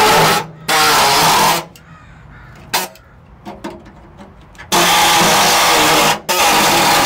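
Pneumatic air saw (reciprocating body saw) cutting through thin, badly rusted sheet-metal car floor pan. It runs in bursts with brief stops, and falls quiet for about three seconds in the middle apart from a few light clicks.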